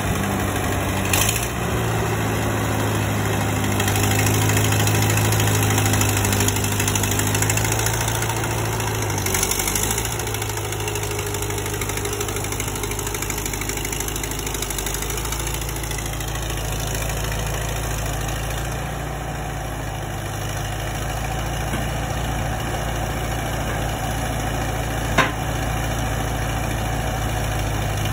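Allis-Chalmers D17 tractor's four-cylinder engine running steadily at low speed while it works its front-end loader, the engine note shifting about ten seconds in. One sharp knock sounds near the end.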